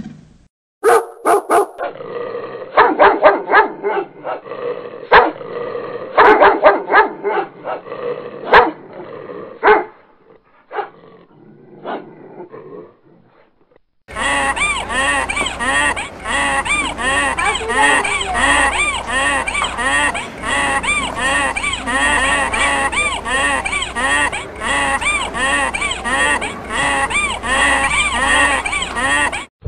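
A dog barking in short bursts, then, about halfway through, a donkey braying: a long run of loud, rhythmic, rising-and-falling hee-haws.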